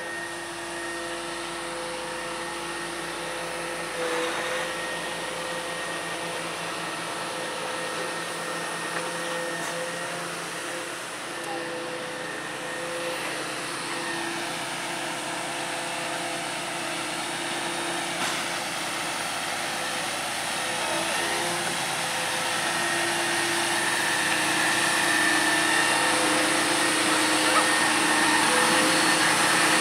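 Western Star delivery truck's diesel engine running steadily with a constant whine, getting louder over the second half.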